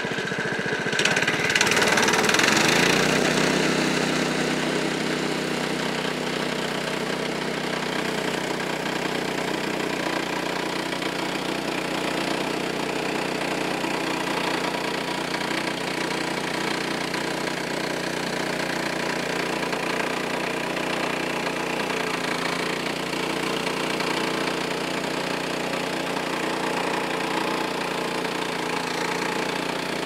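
Frontier OS23 portable sawmill's engine running to warm up, louder for the first couple of seconds, then settling into a steady idle.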